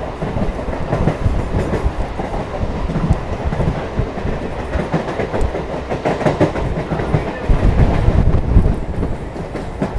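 Electric multiple-unit suburban train running at speed, heard from on board: a steady rumble with wheels clattering over the rail joints, louder for a stretch about eight seconds in.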